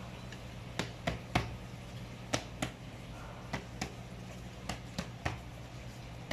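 Irregular sharp clicks and snaps, about two a second, as a bicycle tyre is pressed and worked onto its wheel rim by hand, over a steady low hum.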